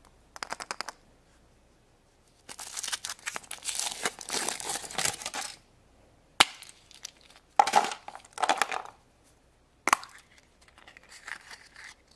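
Foil wrapper crinkling as it is peeled off a chocolate surprise egg, then a couple of sharp snaps with rustling in between as the chocolate egg is broken open.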